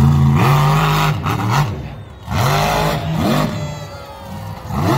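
Monster truck engines revving in repeated blips, the pitch climbing and falling about four times over a steady engine drone.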